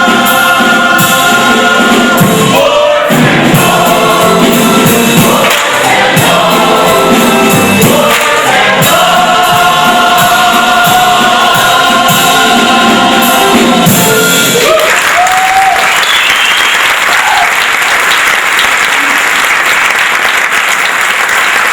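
Voices singing the closing bars of a stage musical number, ending about two-thirds of the way in, then an audience applauding.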